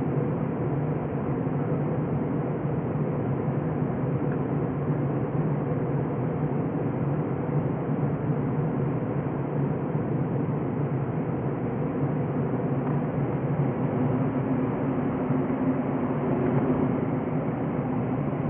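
Steady cabin noise inside an Airbus A321-100 in flight: its jet engines running and air rushing past the fuselage, an even rush with a low, constant hum underneath.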